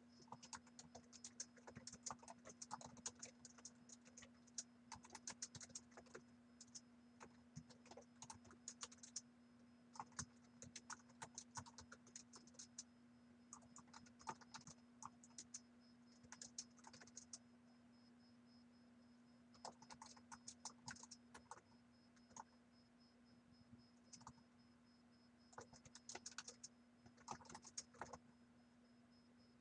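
Faint typing on a computer keyboard: keys clicking in quick runs with short pauses, over a steady low electrical hum.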